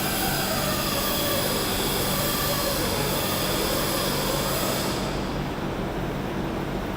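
Steady mechanical running noise: a constant low hum under a broad hiss, with a faint wavering whine in the first few seconds. The upper hiss thins out about five seconds in.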